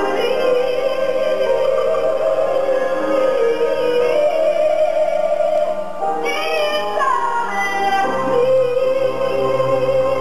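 Music with a woman singing long held notes that slide in pitch, with a short break about six seconds in.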